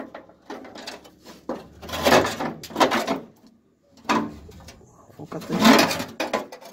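Several short, irregular bursts of metal scraping and clunking as car underbody parts are worked loose by hand.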